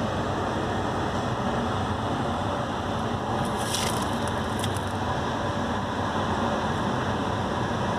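Steady background noise, a continuous rumble and hiss of the kind heard from distant road traffic, with a brief rustle about four seconds in.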